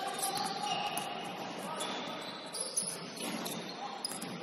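Basketball sneakers squeaking on a hardwood gym floor: many short squeals at different pitches that overlap, with a few sharp knocks.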